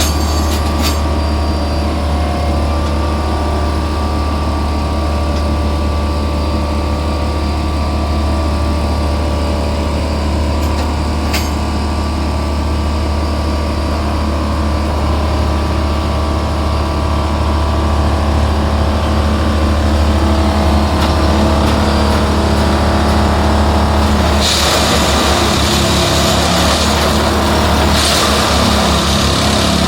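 Diesel engine of a Plasser & Theurer track-lifting machine running steadily under load. Near the end a loud hissing joins in and continues.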